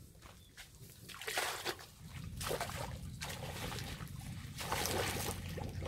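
Water sloshing and splashing in several surges as a person wades into shallow muddy water and works a bucket in it.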